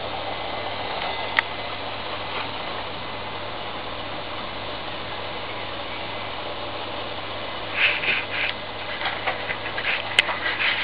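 Steady hiss of steam from a small homemade boiler jetting onto a miniature disc turbine, with a constant low hum; a few short, crackly spurts and a sharp click come near the end.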